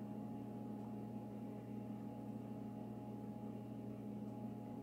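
A steady low hum with several held tones and no distinct knocks or clicks; the egg slicing makes no clear sound of its own.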